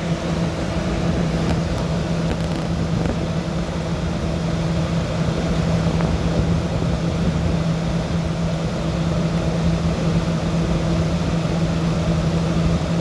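Whirlpool 12,000 BTU window air conditioner running, heard from its outdoor side: a steady hum from the compressor over the rush of the condenser fan blowing out hot air.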